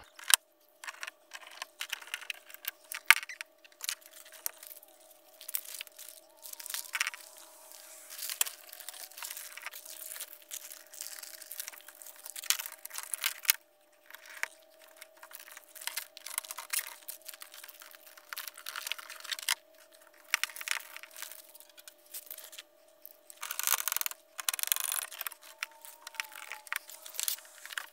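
Sped-up time-lapse audio of car door reassembly work: a rapid, irregular run of clicks, crackles and rustles over a steady faint hum, with a louder rush of noise near the end.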